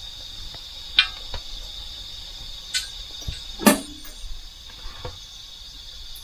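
Steady high-pitched trill of crickets, with a few sharp knocks, the loudest a little before four seconds in.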